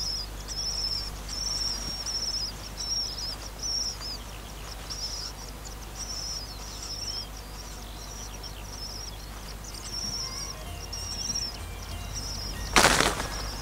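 Skylark nestlings begging with a rapid run of short, high, thin calls that die away about eleven seconds in; a brief loud rustle near the end.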